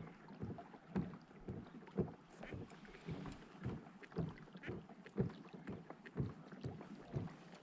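Water knocking against a kayak's plastic hull in a regular rhythm, a stronger low knock about once a second with lighter ones between, with a little wind on the microphone.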